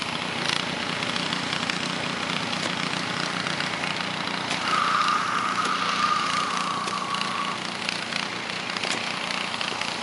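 A small engine running steadily, with a higher whine that comes in for about three seconds in the middle, dropping slightly in pitch.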